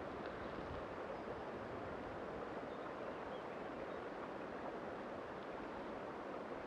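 Steady rushing of flowing river water, an even hiss that does not change.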